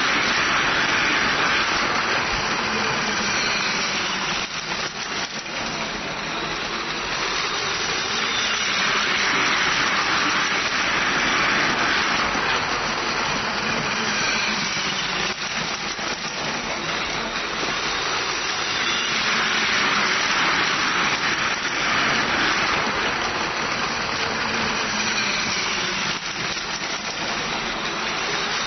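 Battery-powered Plarail toy Shinkansen running on plastic track: a steady whir from its small electric motor and gearbox, with the wheels rattling over the track joints. It swells and fades about every ten seconds as the train comes round the loop past the microphone.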